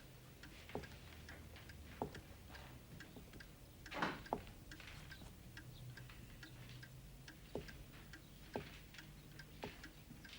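Mantel or wall clock ticking steadily and faintly, with a few soft knocks, the loudest about four seconds in.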